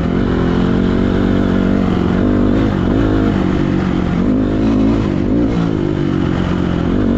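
Small off-road vehicle engine running under way, its pitch rising and falling a little with the throttle, with a rumbling low noise underneath; it cuts off abruptly at the end.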